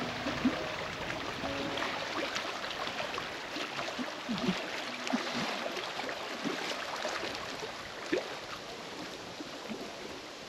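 Lake water splashing and lapping around the inflatable kayaks as they come ashore in wind, with scattered small splashes and a few louder splashes or knocks.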